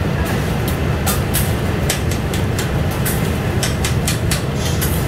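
Metal spatulas chopping and scraping fried rice on a steel teppanyaki griddle: sharp metallic clicks and taps, irregular, about two or three a second, over a steady low rumble.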